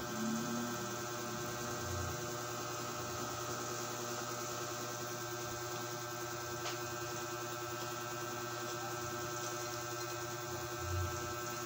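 Steady machine hum with several fixed tones, with a few soft low thumps and one short click past the middle.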